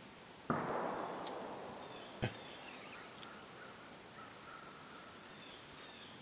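Diesel fuel draining from the fuel filter's drain hole into a paper cup: a sudden rush that fades over about two seconds, then a single sharp knock.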